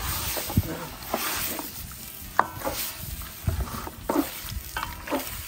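Raw shrimp sizzling in butter in a large stainless-steel pot while a wooden spoon stirs them, with scattered knocks and scrapes of the spoon against the pot. The sizzle is strongest at first and dies down over the next few seconds.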